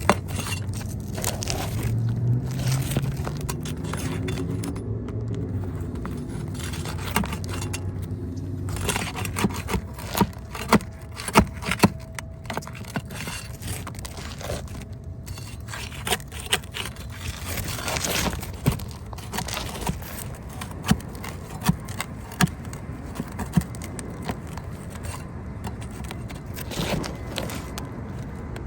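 Nails being pried out of asphalt roof shingles: a hand tool scrapes and levers under the shingles, with irregular sharp clicks and knocks as nails and brittle shingle pieces give way. A low hum lies under the first several seconds.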